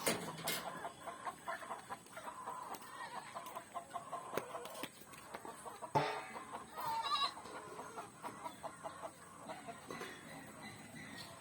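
Chickens clucking on and off in short, irregular calls, with a sharp knock about six seconds in and a wavering call just after it.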